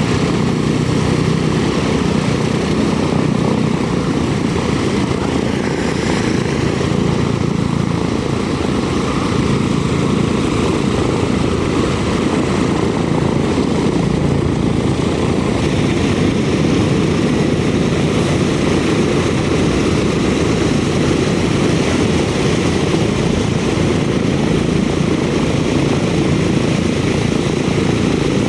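A Boeing B-17 Flying Fortress's four Wright R-1820 Cyclone radial engines running together, their propellers turning, with a loud, steady drone.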